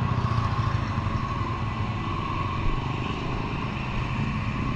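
Small petrol engine running steadily, with a faint steady whine over the low drone.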